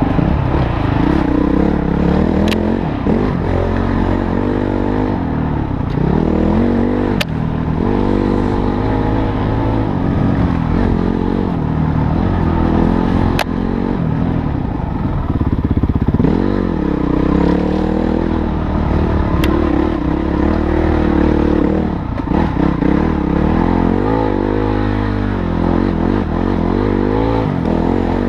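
Motorcycle engine being ridden, its pitch rising and falling as the throttle is worked on and off. A few sharp clicks or knocks break through at intervals.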